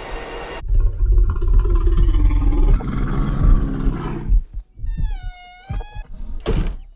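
A black bear's deep roar, starting sharply about half a second in over a heavy low rumble and fading out after about four seconds. Near the end comes a short, high-pitched wavering whine, then a sudden hit.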